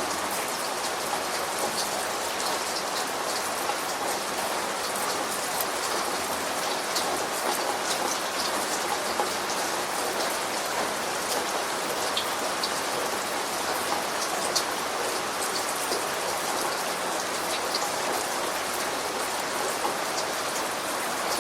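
Steady rain falling, with individual drops ticking sharply on a hard surface scattered through the even hiss.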